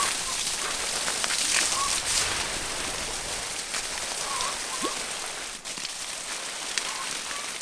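Water gushing from the open end of a raised black polyethylene irrigation pipe and splashing steadily down onto leaves and ground, easing slightly toward the end. The gravity-fed line is being flushed through to a clear flow.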